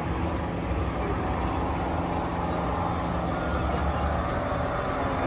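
Street traffic: motor vehicle engines running, a steady low rumble with a faint engine hum throughout.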